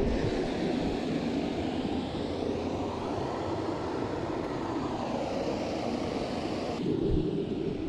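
An aircraft passing overhead: a steady rushing drone whose tone sweeps slowly up and down as it goes by.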